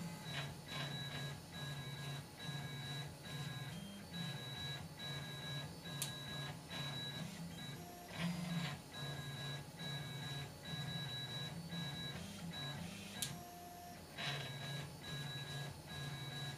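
HyperCube 3D printer's stepper motors, driven by A4988 step sticks at 16 microsteps, whining in short stop-start stretches as the print head moves at 40 mm/s. A few sharp clicks come from the split loom cable sleeve creaking.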